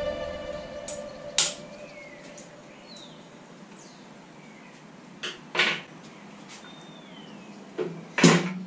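About five sharp clicks and knocks of metal parts and tools being handled on a stripped minimoto frame during disassembly, the loudest near the end. Faint short descending bird chirps sound in the background.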